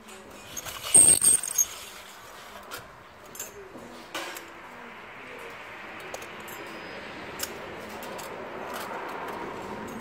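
Metal spoons and glass condiment jars in a tabletop condiment caddy clinking as noodles are seasoned, with a burst of loud, ringing clinks about a second in and scattered lighter clicks after.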